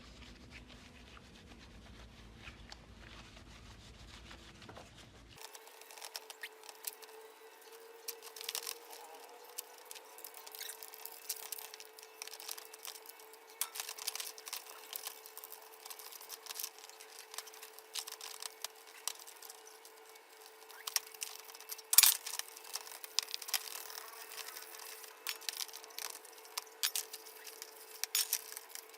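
Scattered light clicks and taps of hand work on metal parts over a steady hum, with one sharper knock partway through; a lower hum in the first few seconds cuts off abruptly.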